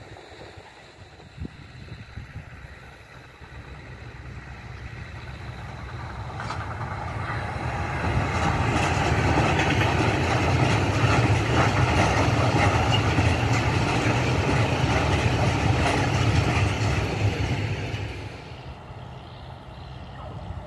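Freight train of red covered hopper wagons passing close, a steady rumble and rattle of wheels on the rails that swells from about four seconds in, holds loud for some ten seconds, then drops away quickly near the end.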